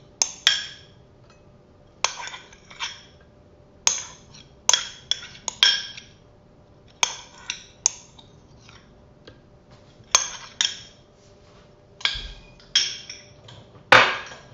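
Cutlery clinking and scraping against a food container while eating, in short clusters of sharp clinks about every second, with one louder knock near the end.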